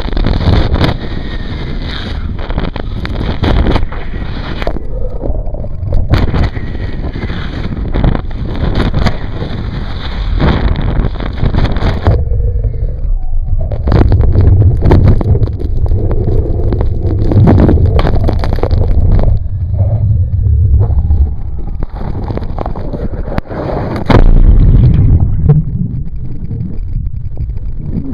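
Water rushing and spraying over a camera mounted on a slalom water ski, with wind on the microphone, a low engine rumble from the tow boat, and frequent sharp knocks and splashes as the ski cuts the water. Near the end the sound turns duller as the ski goes under the water.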